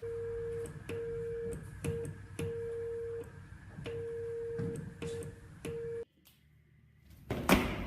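Morse code sent as a steady single-pitch beeping tone: seven beeps, five long dashes and two short dots, each with a faint click as it keys on and off. The tone cuts off sharply about six seconds in, and a loud knock follows near the end.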